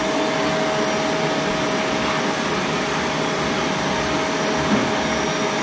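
Vacuum cleaner (hoover) running steadily, its motor noise carrying a constant whine.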